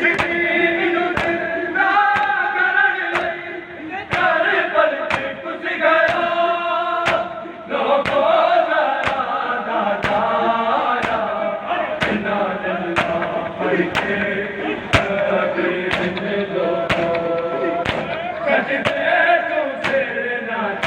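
Men's voices chanting a noha together, kept in time by a crowd of men beating their chests with open hands (matam). The slaps land together as a steady, even beat under the chant.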